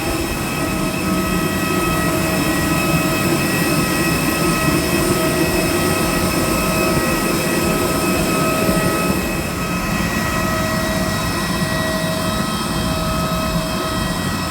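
Steady whine and rumble of a jet aircraft's turbines: several fixed high tones over a low roar, easing slightly about ten seconds in.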